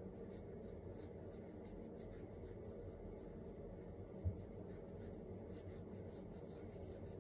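Faint rubbing of hands working thick body butter into the skin, over a steady low hum, with one short soft bump a little over four seconds in.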